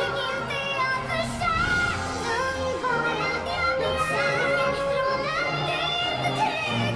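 Female voices singing a dramatic musical duet in Swedish over orchestral accompaniment, the voices processed with an 'angel' voice effect that gives them an artificial sound.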